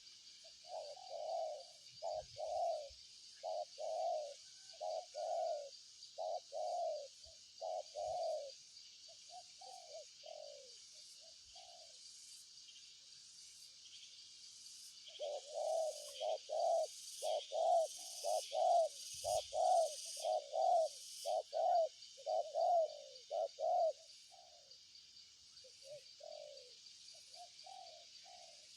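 Spotted dove cooing: low, repeated coo phrases in two long bouts, the second louder, then a few scattered notes near the end. A steady high-pitched buzzing runs behind it.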